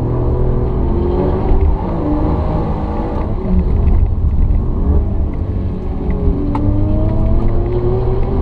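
Alfa Romeo Giulia Quadrifoglio's twin-turbo V6, heard from inside the cabin while driven on track, over heavy road rumble. The engine note dips about a third of the way through, then climbs steadily through the last few seconds as the car accelerates, with a single sharp click about two-thirds of the way in.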